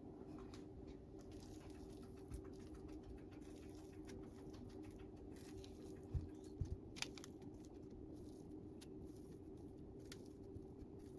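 Steady low hum with light scattered taps and rustles, and a few soft knocks about six to seven seconds in.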